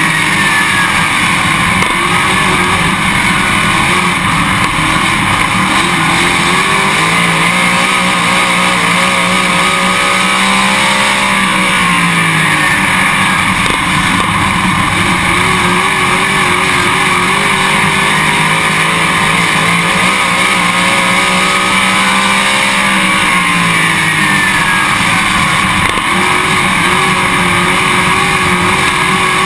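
Dirt late model race car's V8 engine at racing speed, heard on board. The engine pitch falls as the driver lifts for the turns and climbs again down the straights, about every 11 to 12 seconds.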